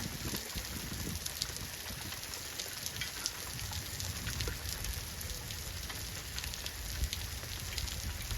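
Steady rain pattering, with many small drop ticks and a low rumble underneath.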